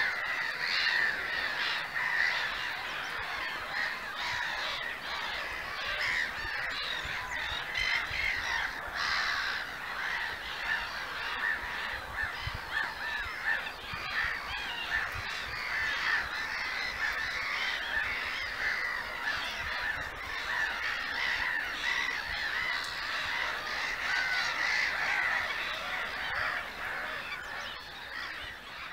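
Black-headed gull colony calling: a dense, unbroken chorus of many overlapping calls.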